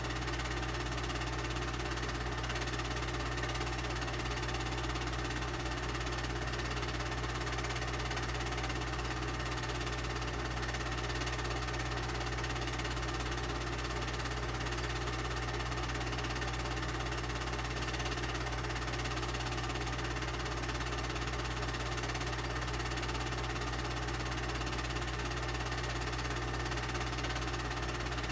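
Home-movie film projector running steadily, with a constant low hum and an even mechanical noise.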